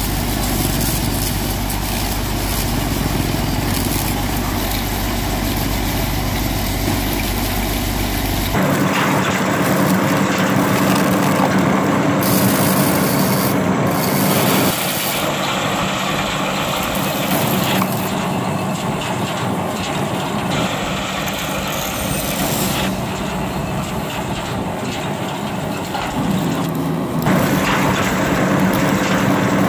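Homemade mini toy thresher machine running with a steady motor hum, while dry stalks fed into it are crunched and rustled by the drum. The tone changes abruptly about a third of the way in.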